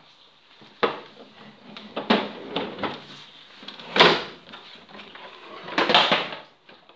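Plastic lawn mower body being handled and tipped onto its side on a tiled floor: scattered knocks and scrapes, the loudest knock about four seconds in and a longer clatter about six seconds in.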